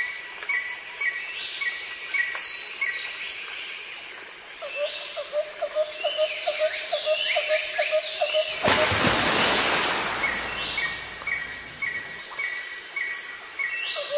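Birds chirping, with many short repeated calls and whistles; a little past halfway a loud steady hiss joins them.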